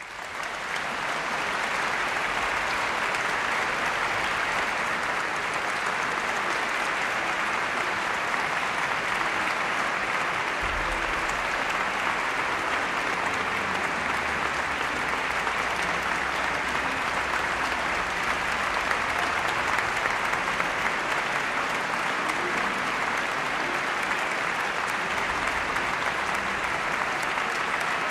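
Concert audience applauding, swelling up quickly at the start and then holding steady.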